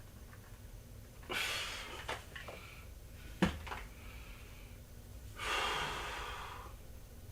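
A person breathing hard: two long, noisy breaths, one about a second and a half in and another near the end, with a sharp click between them.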